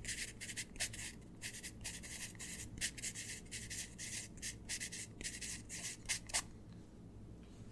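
Graphite pencil scratching across paper in quick, irregular writing strokes that stop about six seconds in.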